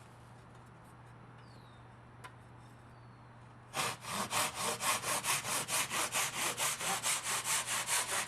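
Hand saw cutting through a length of crown molding, with quick, even back-and-forth strokes starting about four seconds in.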